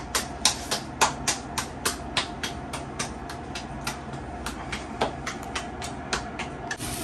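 Hands patting a ball of corn masa flat into a thick gorda, an even run of light slaps about three a second.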